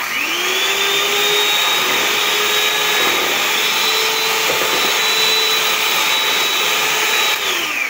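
Electric hand mixer running, its beaters whisking eggs and cream in a plastic bowl. A steady motor whine spins up at the start, holds, and winds down near the end.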